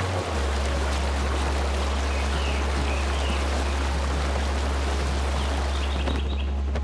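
Waterfall rushing steadily into a pool, an even wash of falling water that drops away about six seconds in. A loud, steady low drone sits beneath it and steps down in pitch just after the start.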